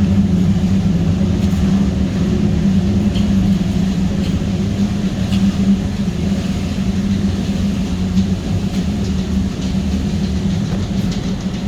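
Steady machinery noise from running steam boilers and their equipment: an even, loud hum with a low rumble and hiss underneath, unchanging throughout.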